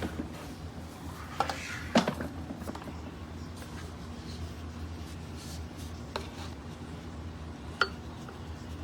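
A few light clinks and knocks of hard objects being handled, the loudest pair about one and a half to two seconds in and two more near the end, over a steady low hum.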